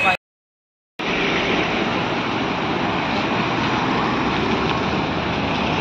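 Steady road traffic noise, the even running of vehicle engines and tyres close by. It comes in after a moment of dead silence near the start.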